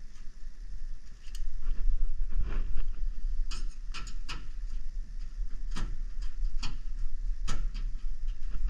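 Irregular sharp clicks and knocks, about a dozen, of parts or tools being handled, over a steady low hum.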